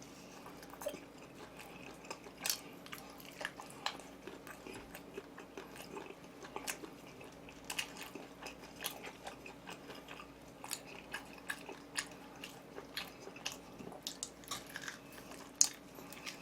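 Close-miked eating sounds: chewing and lip smacking, with many short, sharp wet clicks, over a faint steady hum.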